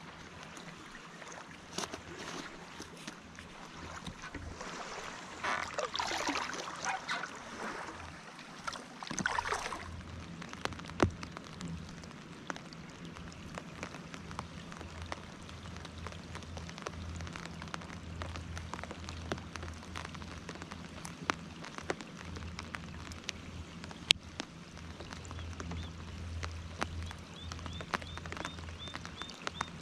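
Scattered raindrops ticking on the packraft and the lake, with a louder stretch of rustling about five to ten seconds in. Near the end a fast run of small, even clicks comes from the spinning reel being cranked.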